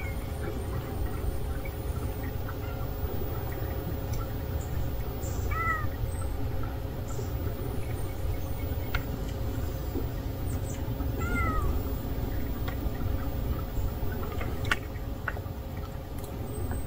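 Street cat meowing twice, short rising-and-falling calls several seconds apart, over a steady low outdoor rumble.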